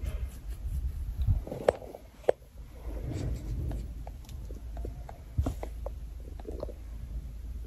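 Hiccups: a few short, sharp clicks over a low rumble. The two loudest come about a second and a half in and just after two seconds, with another about five and a half seconds in and fainter small clicks between.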